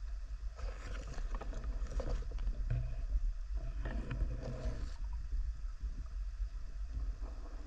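Underwater sound of a freediver swimming through dense water weed: a steady low rumble of water against the camera, with two stretches of swishing and brushing, about a second in and again around four seconds in.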